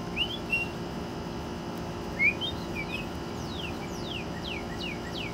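Northern cardinal singing: a few short whistled chirps, then from about three seconds in a quick series of downslurred whistles, about three a second.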